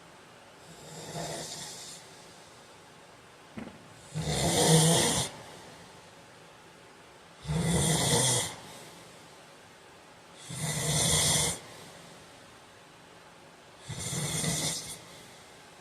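A man snoring in his sleep: five snores in a steady rhythm about every three seconds, each lasting about a second, the first one softer than the rest.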